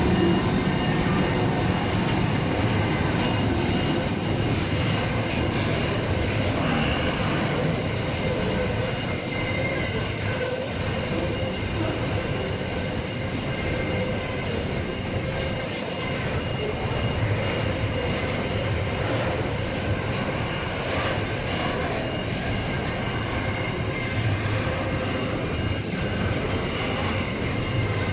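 Freight train wagons rolling past steadily, with rumbling wheels, clacking over the rail joints and a faint high wheel squeal.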